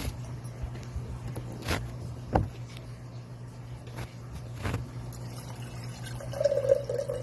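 Water being poured into a large drinking glass, with a few light knocks of glass and a pitched filling sound near the end.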